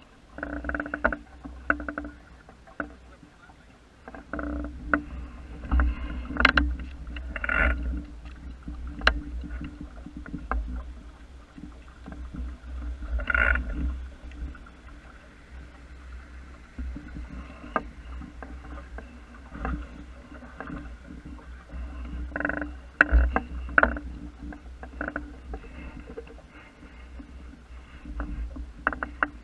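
Small wooden sailing dinghy under way: a steady low rumble of wind and water on the hull, with scattered sharp knocks and creaks from the boat and its fittings.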